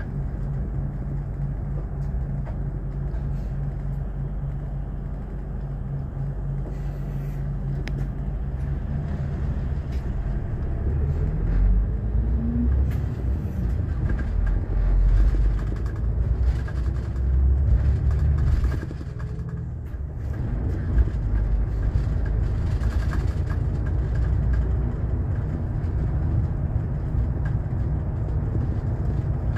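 Highway bus's diesel engine and road noise heard inside the cabin while driving. About eleven seconds in the engine note rises and runs louder for several seconds, eases off briefly about two-thirds of the way through, then settles into a steady rumble.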